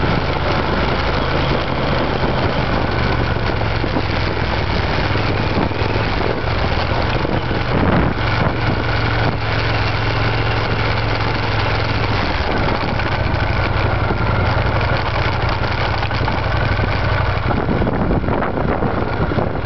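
Triumph Scrambler's 865 cc parallel-twin engine, fitted with TOR exhaust pipes, running steadily while the bike is ridden along an unpaved road, over a constant rush of wind and road noise. A short knock comes about eight seconds in, and the engine note shifts at about twelve seconds and again near the end.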